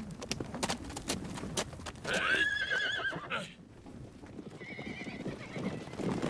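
Horses' hooves clattering for about two seconds, then a horse neighs, the loudest sound, for about a second. A fainter whinny follows about four and a half seconds in.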